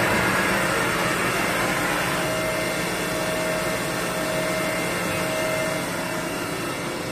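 Samsung MCV-50 vertical machining center running a test program: a steady mechanical hiss and hum with a faint steady whine that drops out and comes back. The hiss is strongest in the first couple of seconds and the whole sound eases off slowly.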